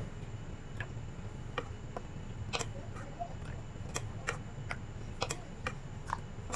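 Light, irregular clicks and taps of a steel ladle knocking against a steel pot and a plastic kulfi mould while thick milk mixture is ladled into the mould cups, over a faint steady low hum.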